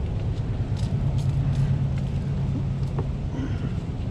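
Steady low rumble of wind buffeting the microphone, with a few faint light clicks.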